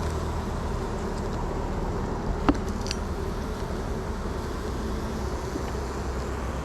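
Honeybee colony buzzing steadily around an open hive. A short sharp click sounds about two and a half seconds in.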